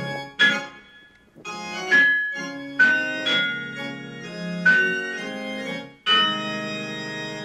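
Background music on a keyboard with an organ-like tone: a slow tune of notes or chords, each starting sharply and fading away.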